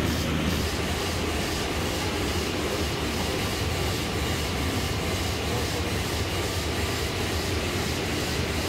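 Printing machine running steadily, a continuous mechanical hum and hiss with a faint even pulsing at first.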